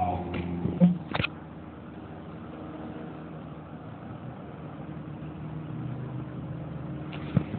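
A steady low engine hum, as from a vehicle running, with a few sharp knocks about a second in and again near the end.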